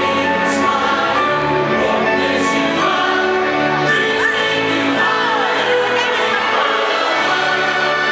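Show soundtrack music with choir-like singing, full and steady with long held notes.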